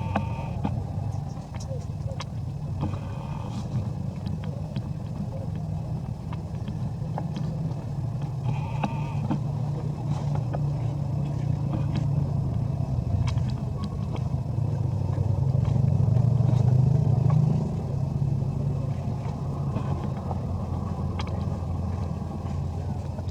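Steady low rumble like a running motor, swelling about fifteen seconds in and easing off near eighteen seconds, with scattered faint clicks and two brief higher-pitched sounds.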